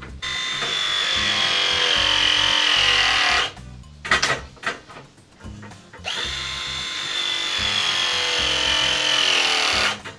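Battery-powered RIDGID ProPress tool crimping press fittings onto copper pipe. There are two press cycles, one at the start and one about six seconds in. Each is a motor whine of about three and a half seconds whose pitch drops slightly as the jaws close, then stops abruptly. A few clicks and knocks come between them as the jaws are moved to the next fitting.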